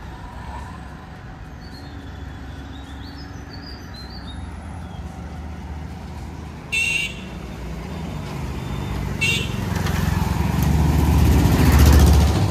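Small motorcycles and scooters with three-wheeler auto-rickshaws going by on the road, the engine noise building up to a close pass near the end. Two brief horn toots sound a couple of seconds apart in the middle.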